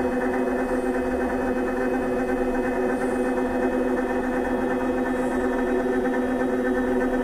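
Vibration therapy apparatus running steadily with a patient lying on it: an even, continuous mechanical hum with a strong pitched tone.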